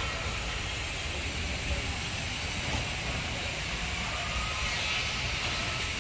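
Steady outdoor background noise: an uneven low rumble with an even hiss over it, and no distinct events.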